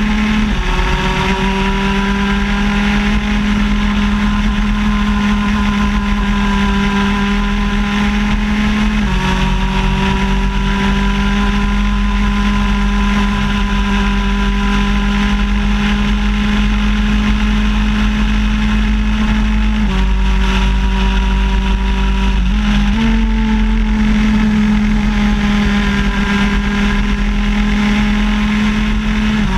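Shifter kart's two-stroke engine running hard at high revs, its pitch climbing slowly and jumping in sudden steps a few times as gears change, over a constant rush of wind and road noise.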